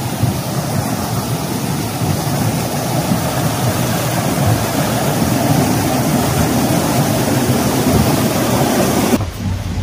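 Loud, steady rushing noise with no distinct tones, cutting off abruptly near the end.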